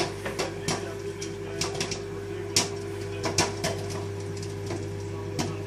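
Popcorn kernels popping at irregular intervals inside a running microwave oven, over the oven's steady hum.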